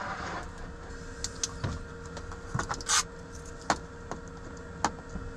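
Metal Coleman camp stove being opened and set up: scattered clicks and knocks of its lid and wind panels, with one louder clattering scrape about three seconds in, over a steady low mechanical hum.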